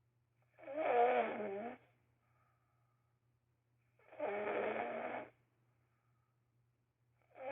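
Snoring, each snore lasting just over a second with a wavering pitch, about one every three and a half seconds: two full snores and the start of a third near the end.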